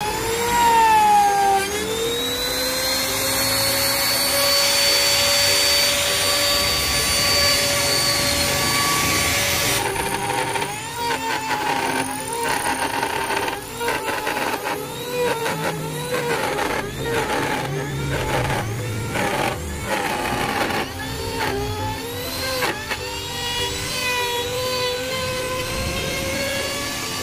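Electric power tool motor running with a high whine that settles after starting up. From about ten seconds in, its pitch dips and recovers over and over, as under cutting load.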